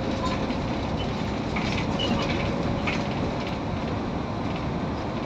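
Inside a Mercedes-Benz O530G Citaro articulated bus under way: steady engine and road noise, with a few brief clicks and rattles about two and three seconds in.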